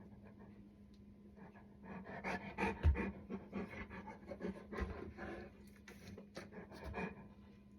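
A Black Russian Terrier panting rapidly, starting about two seconds in and lasting about five seconds, with a low thump near three seconds.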